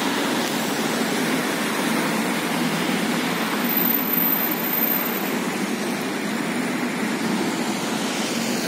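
Steady noise of road traffic passing on a city street: cars, a minibus and a motor scooter.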